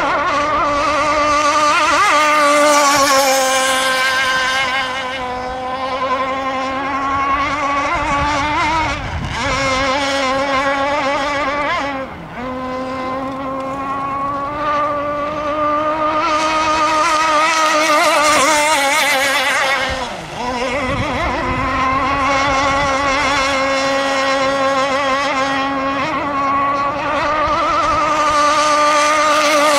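Two-stroke gas engine of an RC rigger boat running at high speed with a steady, high-pitched whine. It briefly drops off twice, about 12 and 20 seconds in, then comes back up.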